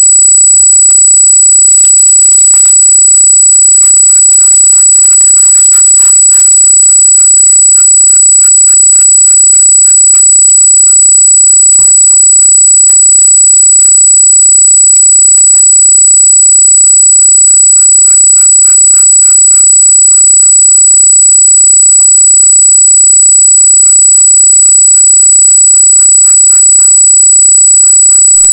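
A loud, steady high-pitched squeal, one unbroken tone with fainter steady tones above and below it, over a faint crackle. It is a stray tone in the trail-camera recording whose origin the owner does not know.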